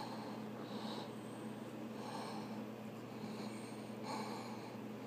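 Several soft breaths through the nose close to the microphone, over a faint steady hum.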